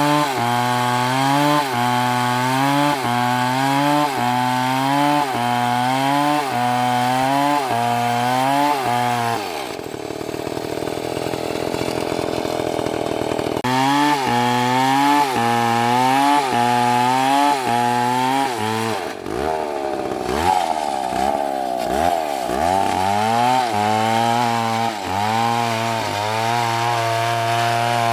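MS720 chainsaw cutting a big trunk, its engine pitch rising and sagging about once a second as the chain is pushed into the wood. About a third of the way in the engine drops off for a few seconds, then it picks up and cuts again, with quick revs up and down past the middle.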